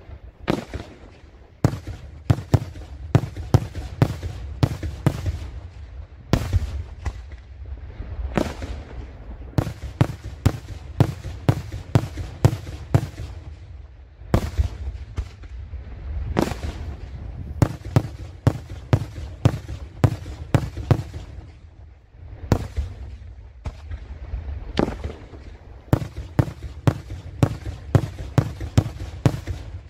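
Daytime fireworks display: aerial shells bursting overhead with sharp bangs in quick runs of several a second, broken by brief lulls between volleys.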